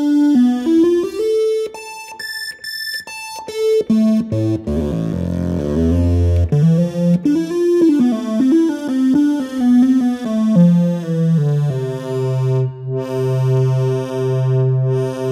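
Analog synthesizer tones from a breadboarded NE566 square/triangle-wave oscillator layered with an Arturia MiniBrute's oscillator, played from the keyboard. It runs through notes at many pitches, some high and short, with pitch bending between notes in the middle. Near the end it settles on a held low note that pulses in level.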